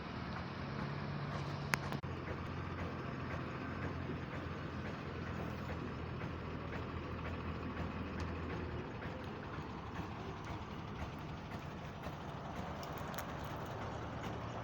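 A motor vehicle's engine running steadily with a low hum, with a sharp click a little under two seconds in.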